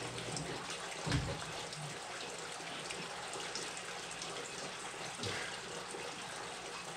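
Steady sound of running water from aquarium filters, with a dull thump about a second in and another about five seconds in.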